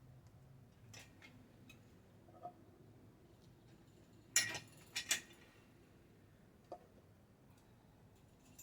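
A few light clinks and knocks of hard objects being handled, with two louder clinks about a second apart midway.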